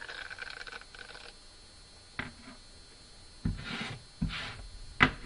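Plastic handle being worked into the head of a small wire-pin pet slicker brush: rhythmic squeaky rubbing of plastic for about the first second, then a click, two scraping pushes with dull knocks, and two sharp, loud clicks near the end.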